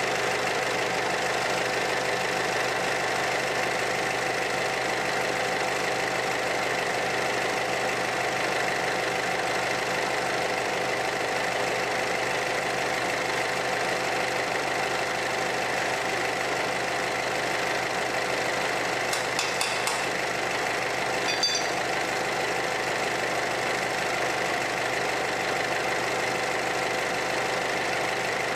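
Small stationary diesel engine running steadily at idle with an even knock, its fuel just replaced to get rid of suspected water. A few light metallic clicks come about two-thirds of the way through.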